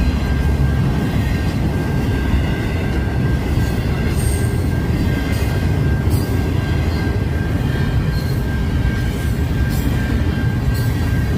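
Train rolling past: a steady low rumble of the cars, with a thin, steady squeal of the wheels on the rails and scattered faint clicks.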